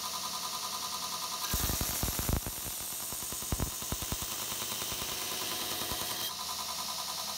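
Belt grinder running steadily, with a knife blade in an aluminium grinding jig pressed against the belt from about one and a half seconds in until about six seconds: a grinding hiss with a few sharp knocks, after which the grinder runs on alone.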